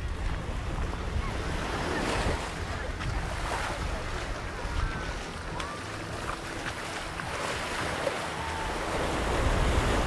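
Small waves washing up and draining back on a sandy beach, with gusts of wind rumbling on the microphone.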